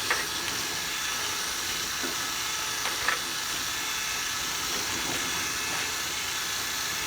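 Steady airy hiss of a running machine, with a couple of light knocks, one near the start and one about three seconds in.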